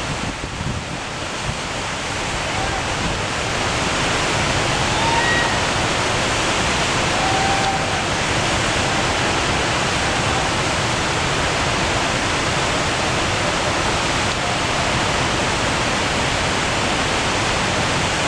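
Steady rushing roar of falling whitewater at a waterfall. It grows louder over the first few seconds, then holds steady.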